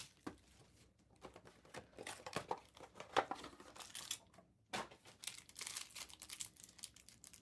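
Trading card packs being torn open by hand, the wrappers crinkling and crackling in short irregular bursts.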